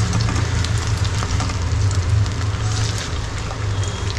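Oil sizzling and crackling in a frying pan as whole spice-coated rohu fish fry, with a steady low hum underneath.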